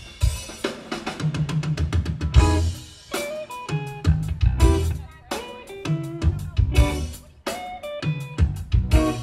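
Live rock band playing through an outdoor PA: a drum kit keeps a steady beat of kick and snare hits under short, stepping electric guitar lines. It is amplified by Danley SH96HO Synergy horn tops and TH118xl tapped-horn subwoofers.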